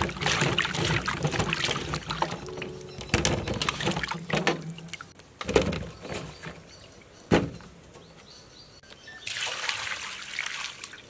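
Hands sloshing and rubbing noni fruit in a steel bowl of water, followed by a few separate knocks as the fruit is handled into a plastic basket. Near the end, water is poured over the fruit in the basket and splashes through it.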